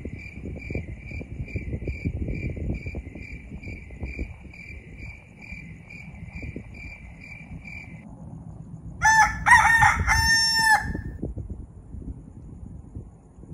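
A cricket chirping steadily, about two to three chirps a second, stopping about eight seconds in; then a rooster crows loudly once, about two seconds long, about nine seconds in. A low rumble runs underneath.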